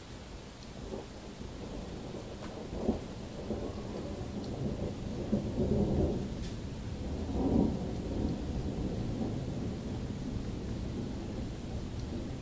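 Rolling thunder: a long, low rumble that swells to its loudest peaks about halfway through and then slowly eases off, over steady rain.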